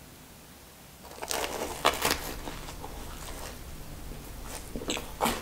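Biting into a s'more of flaky pastry biscuit and toasted marshmallow: a cluster of crisp crunches about a second in, then softer crackly chewing with a few clicks.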